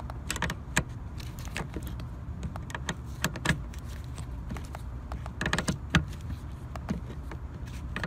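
Steel combination wrench turning a seatbelt anchor bolt a little at a time by hand: scattered sharp metallic clicks and clinks as the wrench is moved and reset on the bolt head, over a low steady hum.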